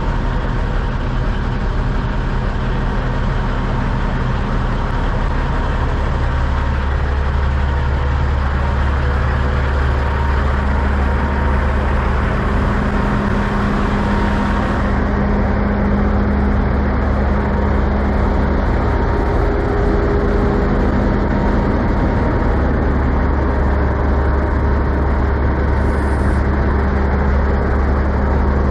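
Diesel engines of parked semi trucks idling, a steady low drone with a constant hum.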